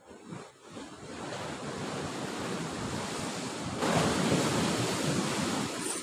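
Surf breaking and washing over rocks below a sea cliff, with wind buffeting the microphone; a bigger, louder wave breaks about four seconds in.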